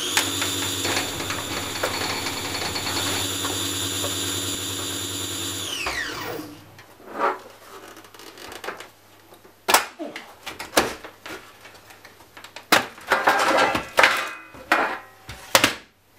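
A motor-like whine, added over the channel logo, holds steady for about six seconds and then winds down. It is followed by handling noises from the DVD player's sheet-metal case: scattered clicks, knocks and short scrapes as the top cover is worked loose and lifted off.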